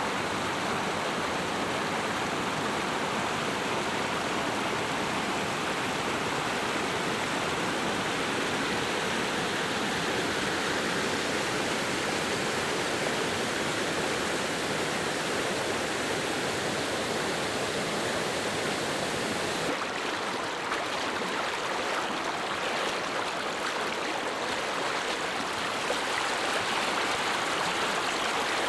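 Storm rain and running water, a steady dense rush. About twenty seconds in, the highest hiss drops away a little.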